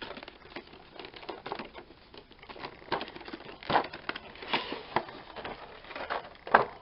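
Stiff clear plastic blister packaging and a cardboard box being handled: irregular crinkling and crackling, with a few sharper clicks through the middle and near the end.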